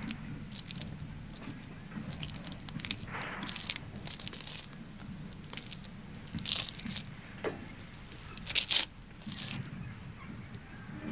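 Footsteps scuffing and crunching on a gritty paved yard, a run of short crisp scrapes with a few louder crunches about six and a half and eight and a half seconds in.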